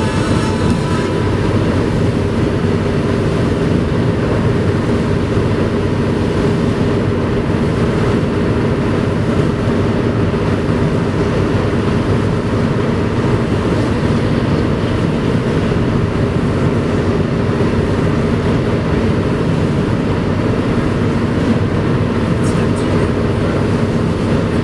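Steady road noise inside a car driving at highway speed on a wet road: tyres on wet pavement and a constant low engine hum, with no change throughout.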